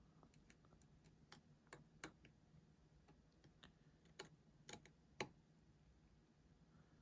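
Faint, irregular small clicks and taps of precision tools working inside an opened iPhone 7 Plus, fitting a screw to hold its loose Taptic engine in place.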